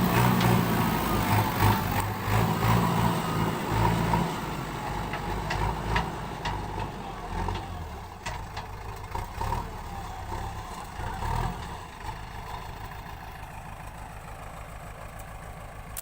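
JCB backhoe loader's diesel engine working hard, with scattered knocks and clanks, then easing down to a steady low idle over the last few seconds.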